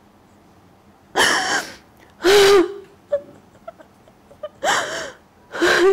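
A woman crying between sentences: four loud, shaky sobbing breaths, the second with a short voiced whimper, and a few faint mouth clicks between them.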